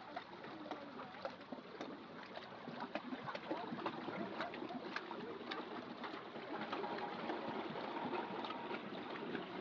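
Water trickling and splashing, scattered with many small irregular clicks, slowly growing louder.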